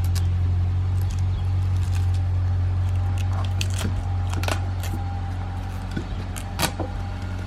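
A steady low hum with scattered clicks and crackles, heard while the engine-off car is pushed by hand into its parking spot. The sharpest click comes about two-thirds of the way through.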